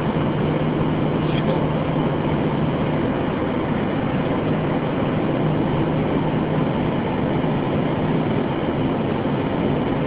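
Steady road and engine noise inside a car's cabin while driving at speed, with a low steady engine hum underneath.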